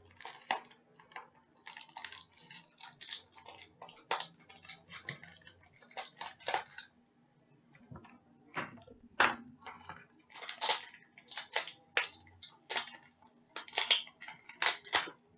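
Hands handling a boxed stainless steel cutlery set and its packaging: an irregular run of clicks, taps and crinkles as the pack is worked open.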